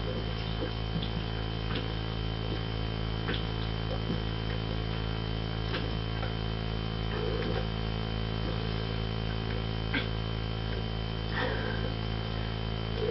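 Steady electrical mains hum under faint, irregular soft gulps and small clicks of someone chugging canned Pepsi.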